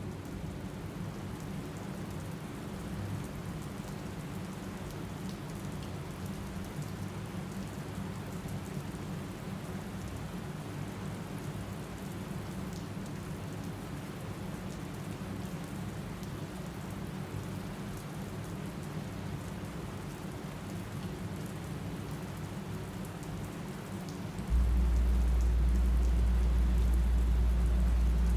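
Steady rain falling and pattering on a surface. Near the end a loud, deep rumble starts suddenly and holds.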